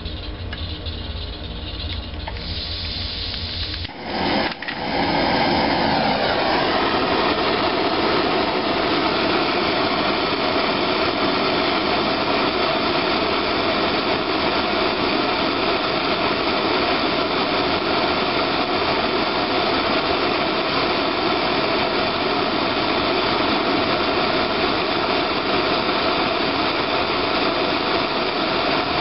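Handheld gas blowtorch lighting about four seconds in, then its flame hissing steadily and loudly as it heats a glass test tube.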